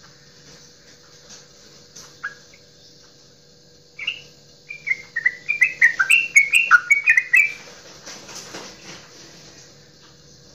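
Yellow-vented bulbul (trucukan) singing its 'goklikan' song: a single short note, then about four seconds in a quick, bubbly run of chattering notes that jump up and down in pitch for about three and a half seconds.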